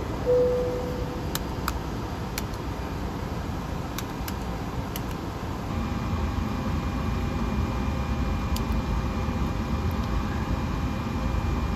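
Steady air-conditioning and fan hum in the cockpit of a parked Airbus A330, with a short beep just after the start and a few sharp clicks. About six seconds in, the hum grows louder and a steady whine joins it.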